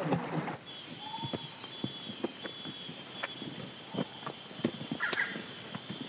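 Footsteps of rubber boots on leaf litter, irregular, about two a second, over a steady high drone of forest insects. Both start suddenly under a second in.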